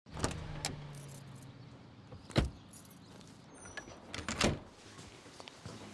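A low hum at the start, then a door shutting with a loud thud about two and a half seconds in, followed by another cluster of clunks and knocks near four and a half seconds.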